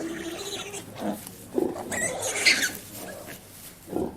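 Pigs grunting, with a high-pitched squeal about two seconds in.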